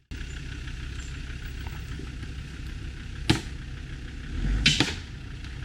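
Off-road vehicle's engine idling with a steady low rumble, with a sharp knock about three seconds in and a short louder burst of noise near the end.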